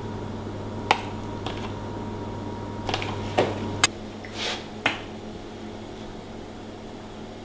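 Kitchen handling sounds: a metal spoon scraping and knocking against a plastic tub and a stainless steel bowl, with containers and a glass bottle being picked up and set down. These make about six sharp clicks and knocks in the first five seconds, with one short rushing sound among them, over a steady background hum.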